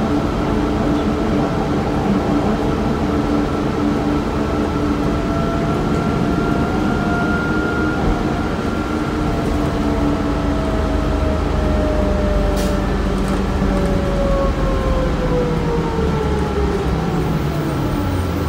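Ride noise inside a New Flyer C40LFR bus with a Cummins Westport ISL-G natural-gas engine and Allison B400R6 transmission: engine and drivetrain running under way with a steady hum and whine. Over the last several seconds the whine falls in pitch as the bus slows.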